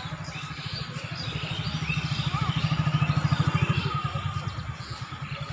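A motorcycle engine passing close by, its fast low beat growing louder to a peak about three seconds in and then fading, with birds chirping in the background.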